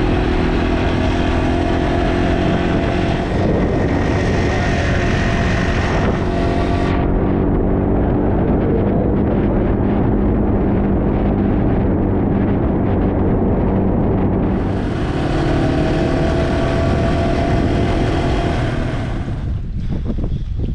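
Motor engine running steadily under way, its note drifting up slightly in stretches.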